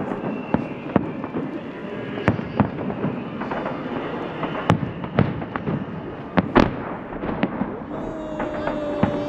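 Fireworks salute bursting overhead: a dense run of sharp bangs and crackles, with the loudest bang about six and a half seconds in. A steady held tone joins near the end.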